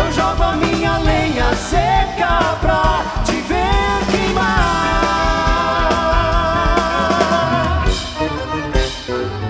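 Live band playing a milonga, a melodic passage without words. A long held note sits in the middle over a pulsing bass.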